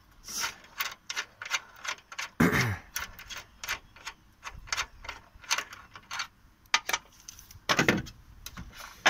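Ratchet wrench clicking in irregular runs as a seat-belt mechanism bolt is undone, with two louder knocks: one about two and a half seconds in and one near the end.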